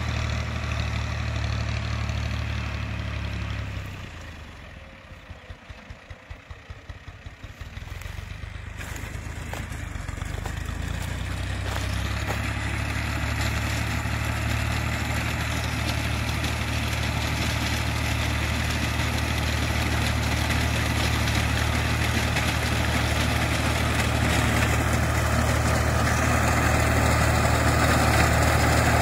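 Tractor engine running steadily while it drives a front-mounted reaper binder cutting wheat. The engine sound drops away for a few seconds about four seconds in, then grows steadily louder toward the end as the tractor comes close.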